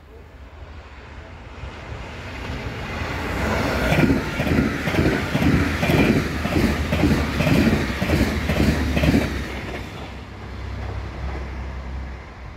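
A train passing, with a low rumble and its wheels clattering over the rails in a rhythm of about two to three knocks a second. The sound builds over the first few seconds, is loudest in the middle as the train goes by, and fades near the end.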